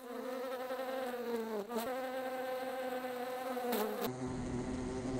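Housefly buzzing in flight: a steady hum that wavers slightly in pitch and dips briefly about a second and a half in. There is a short high hiss about four seconds in.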